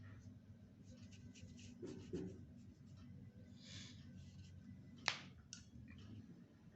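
Paintbrush working on paper: faint scratchy strokes and small clicks, with a short scrubbing stroke near four seconds in and one sharp tap about five seconds in.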